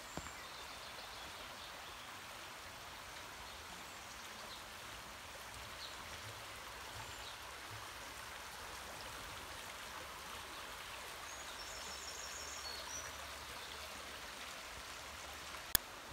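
Shallow stream flowing over stones, a steady rushing of water. A few faint high bird chirps come in about two-thirds of the way through, and a single sharp click sounds near the end.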